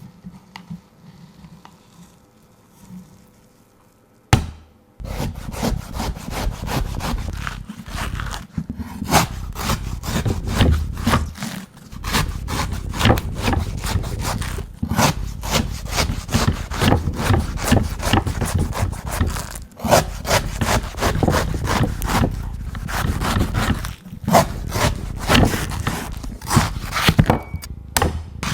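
A knife cutting a coconut: quiet at first, then a sharp knock about four seconds in, followed by fast, repeated chops and scraping strokes of the blade through the fibrous husk.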